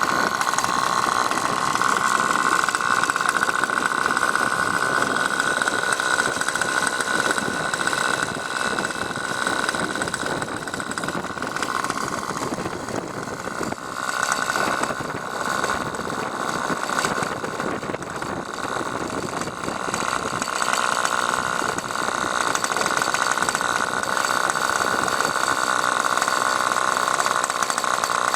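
Engine of an Aeolus 50 RC helicopter running steadily, easing off for a few seconds around the middle before picking up again.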